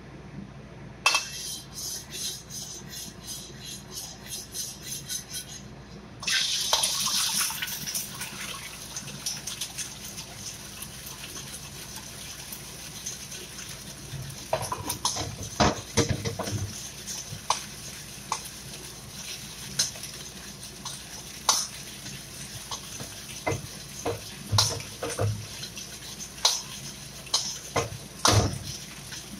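Egg poured into hot oil in a stainless steel wok sets off a sudden loud sizzle about six seconds in, after a few seconds of quick, even clicking. The sizzle fades to a steady one, and from about halfway a metal ladle scrapes and clanks against the wok as the egg is scrambled.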